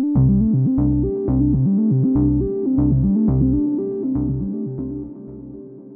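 Short synthesizer keyboard music cue with a repeating bass line and a beat of about two strokes a second, starting suddenly and fading out in the last seconds.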